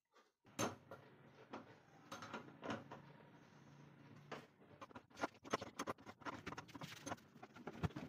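Faint clicks, taps and scrapes of hands handling plastic parts while a replacement plastic pulley wheel is fitted into a mini washing machine. The taps are sparse at first and come thicker in the last few seconds.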